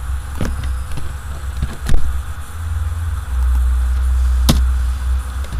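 Computer mouse and keyboard clicks, four sharp single clicks a second or more apart, the second the loudest, as code is selected, copied and pasted. A low steady rumble runs under them.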